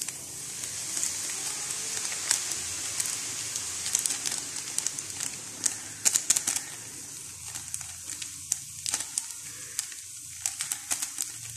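Pan of seasoned water at a rolling boil, frothing and bubbling with a steady hiss and many small crackling pops.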